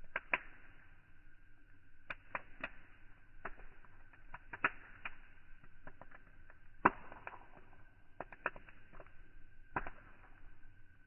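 Wood campfire crackling, with irregular sharp pops and a louder snap about seven seconds in, over a faint steady high tone.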